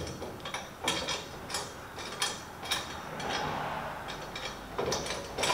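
Irregular mechanical clicks and light knocks from the front steering of a classic Mini as the bare hub and brake disc are turned on a modified steering knuckle.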